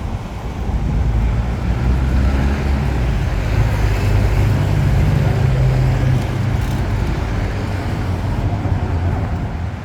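City street traffic with a motor vehicle's engine running close by, a low drone that swells to its loudest around the middle and eases off towards the end, over a wash of road noise.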